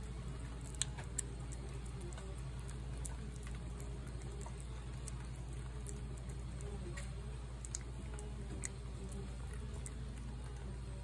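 A tabby cat chewing wet cat food from a plate, with scattered small clicks and smacks, over a steady background of rain.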